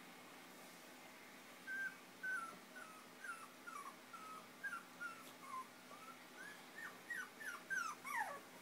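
Five-week-old Chinese Crested puppy whimpering: a string of short, high whines that starts about two seconds in and comes faster near the end, the last few sliding sharply down in pitch.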